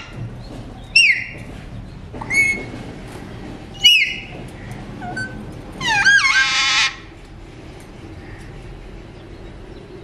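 Alexandrine parakeet calling: short whistled squawks with sharp up-and-down pitch sweeps, about one every second and a half, then a longer, louder call about six seconds in.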